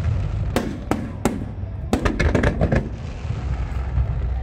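Distant aerial fireworks: three sharp bangs about a third of a second apart starting about half a second in, then a dense run of crackling pops around two seconds in, over a steady low rumble.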